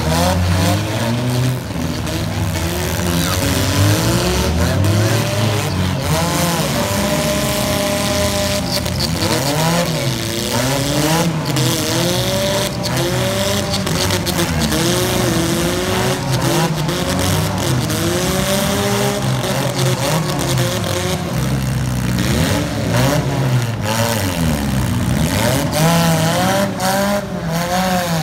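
Several demolition derby car engines revving up and down at once, the pitch of each rising and falling again and again, with scattered crunching metal impacts as the cars ram each other.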